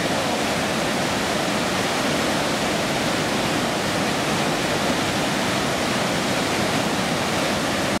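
A small river waterfall: water pouring over a low ledge in a steady rush of white water.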